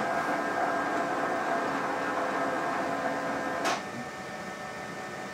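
Zebra ZXP Series 8 card printer feeding a cleaning card through itself and scrubbing its rollers: a steady mechanical whirr of the feed motors. A click comes at the start and another a little under four seconds in, after which it drops to a quieter hum.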